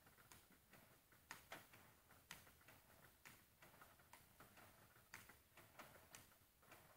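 Table tennis ball clicks during robot practice: faint, sharp ticks of celluloid-type balls bouncing on the table and struck by the bat, about two or three a second in an uneven rally rhythm.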